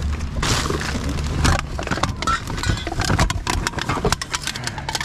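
Rubbish being rummaged through by hand: plastic bags and packaging rustling and crinkling, with bottles and cans knocking and clinking against each other, over a steady low hum.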